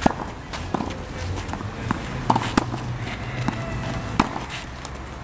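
Tennis balls knocking off rackets and bouncing on the court, a dozen or so sharp hits at uneven intervals, as several players work at once.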